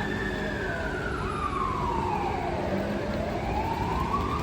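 Fire engine siren on a slow wail. The pitch falls steadily from its peak over about three seconds, then starts rising again, over a low rumble.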